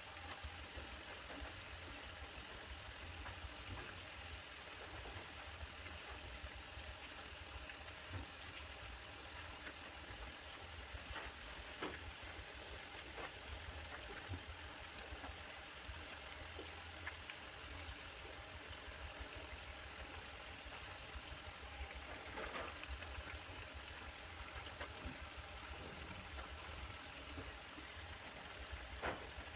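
Grated-potato fritters deep-frying in hot oil in a pan, a steady sizzle and bubble. A few faint clicks come through it as a metal fork knocks against the pan while turning them.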